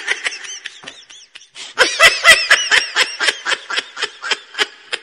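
Giggling laughter, a quick run of short 'ha' notes that fades briefly after the first second and comes back stronger about two seconds in.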